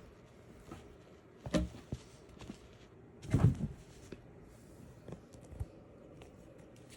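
Thuds from a cat moving about: a sharp thump about a second and a half in, then a louder, heavier thud about three and a half seconds in, with a few light taps between.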